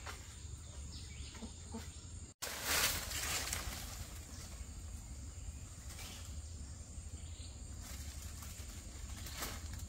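Outdoor ambience with a steady high insect drone, broken by a short dropout about two seconds in, then a louder burst of rustling noise and scattered smaller rustles.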